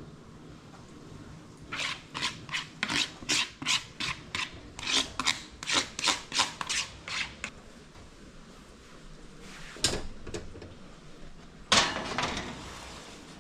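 A run of short rasping, scraping strokes, between two and three a second, for about five seconds. After a pause comes one more stroke, then a louder, longer scrape near the end.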